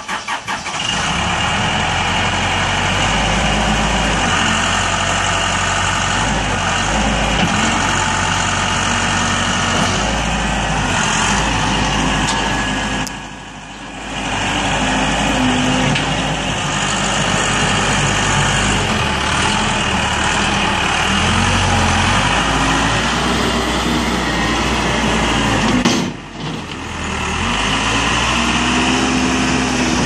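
Case 580L loader backhoe's four-cylinder diesel engine catching in the first second, then running steadily while the machine is driven and its loader worked, with two brief dips in level.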